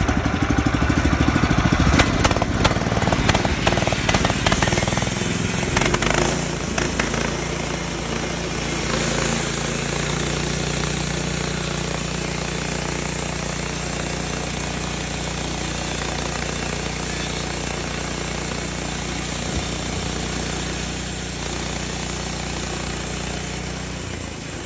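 Small air-cooled four-stroke petrol engine of a portable band sawmill running, rough and knocking for the first few seconds, then settling into a steady run.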